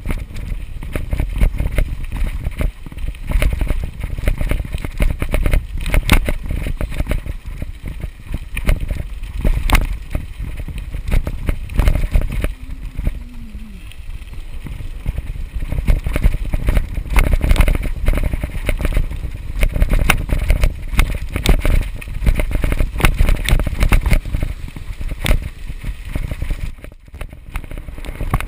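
Mountain bike ridden over a rough dirt trail, picked up by a camera mounted on the bike or rider: wind rumbling on the microphone with constant irregular rattling and knocking over the bumps. The sound briefly drops out a little before the end.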